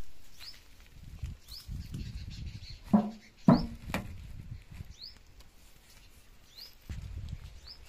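Large square metal tin set down upside down on the ground: two hollow metallic knocks about half a second apart, midway through. A bird chirps in the background, short rising chirps about once a second.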